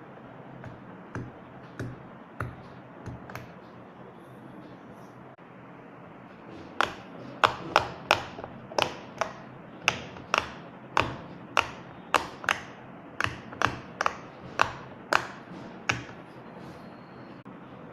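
Silicone pop-it fidget toy being popped: a few soft pops, then a steady run of about twenty sharp pops at roughly two a second.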